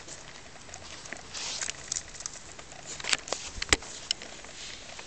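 Rabbits shifting about in a wicker basket: scratchy rustling with a few sharp clicks, the loudest a little before the four-second mark.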